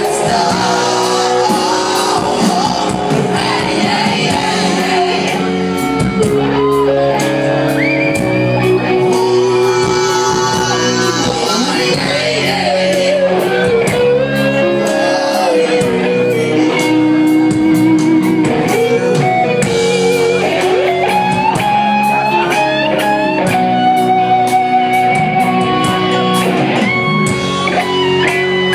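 Live rock band playing, led by an electric guitar with bent, gliding notes over bass, drums and keyboard, with some singing.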